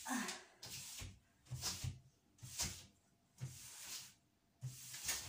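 A cloth wiping across the top of a wardrobe in repeated short swishing strokes, about one a second, some with a light knock against the panel.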